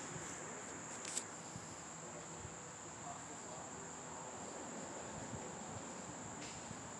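A faint, steady, high-pitched whine that holds one pitch throughout, over a low hiss, with two light clicks in the first second or so.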